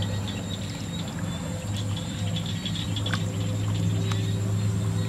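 Water trickling and splashing in a shallow muddy channel as a fish or eel moves through it, with small clicks, over a steady low hum that is the loudest sound.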